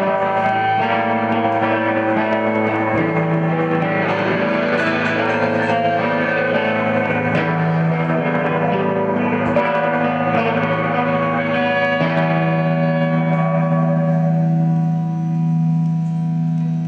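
Live band music led by electric guitar played through effects, with sustained ringing chords over a steady low drone. Near the end the higher sound fades away and the music swells and dips in level.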